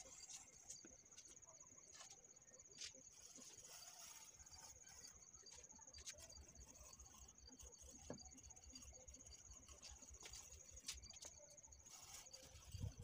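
Near silence, with a faint, steady, high-pitched cricket trill. A few faint ticks come from a hand tool scraping grooves into the cement plaster.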